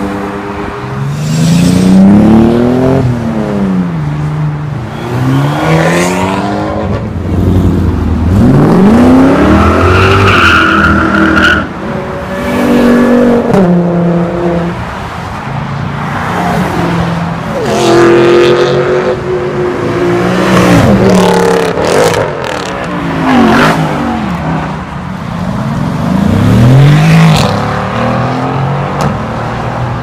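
A string of sports and performance cars accelerating hard past one after another, each engine revving up, shifting and falling in pitch as it goes by, with a brief high whine about ten seconds in.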